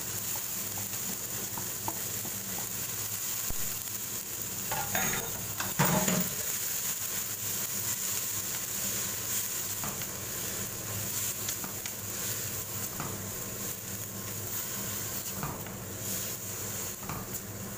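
Bean sprouts sizzling in hot oil in a non-stick wok while a wooden spatula stirs and tosses them, with small taps and scrapes of the spatula on the pan. A louder clatter comes about five to six seconds in.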